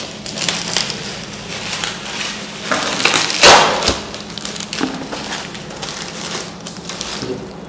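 Bubble wrap crinkling and rustling as it is pulled off a picture frame: irregular crackles, the loudest burst about halfway through.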